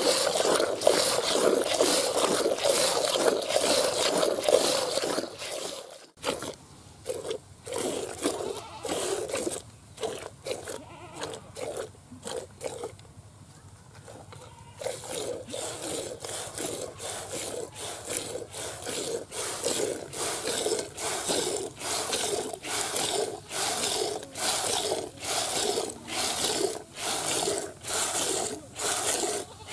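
Cow being hand-milked: jets of milk squirt from the teats into a plastic bucket of foamy milk, each pull giving a short hissing splash. The squirting is dense and loud at first, drops away suddenly about six seconds in, and from about halfway settles into a steady rhythm of roughly one and a half to two squirts a second.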